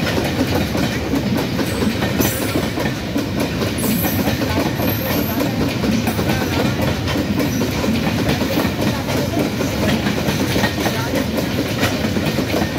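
Pakistan Railways goods train's covered freight wagons rolling past: a steady rumble of steel wheels on rail with a clickety-clack as the wheels cross the rail joints.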